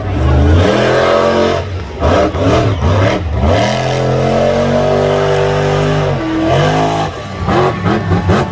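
Monster truck engine revving hard in repeated bursts, the pitch climbing and dropping, held high for about two seconds around the middle before falling off and revving again.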